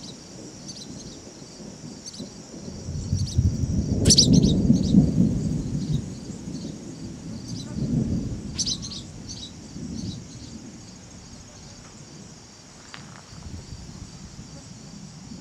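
Thunder rumbling from a nearby storm, swelling a few seconds in and rolling on in softer waves before fading. A steady high trill of insects and a few short bird chirps sound over it.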